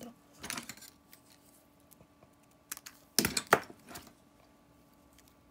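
Hands handling small paper embellishments on a craft mat: a few brief paper rustles and light taps, the loudest cluster about three seconds in, with quiet between.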